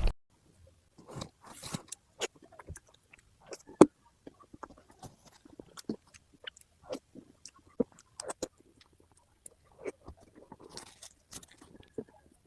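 Close-miked mouth sounds of someone eating cake: irregular chewing with small wet clicks and soft crunches. The loudest bite or crunch comes about four seconds in.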